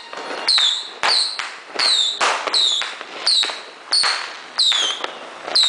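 A rhythmic run of sharp bangs, about three every two seconds, each followed by a short ringing tone that falls in pitch.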